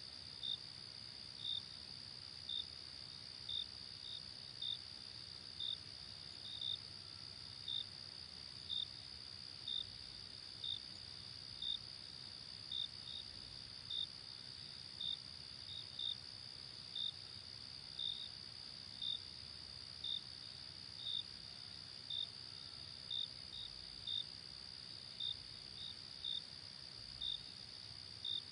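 Crickets at night: a steady, high-pitched chorus trill with one louder cricket chirping over it about once a second, a little lower in pitch.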